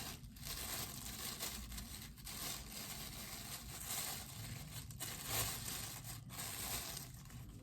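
Packaging rustling and crinkling as it is handled and torn open, in uneven bursts.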